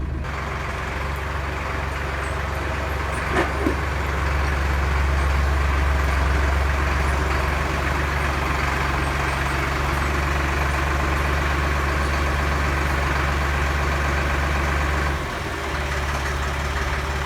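Tractor engine running steadily, with two short knocks about three and a half seconds in and a brief dip in its sound near the end.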